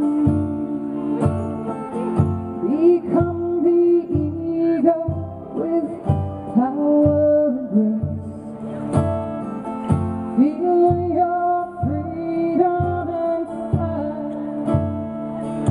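A woman singing a slow, sustained melody over her own acoustic guitar, which keeps a steady beat.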